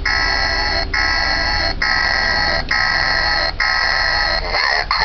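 Electronic sound effect from a Halloween demon-head door-knocker prop: a harsh, alarm-like buzzing tone that repeats about once a second, turning into a short warbling sound near the end.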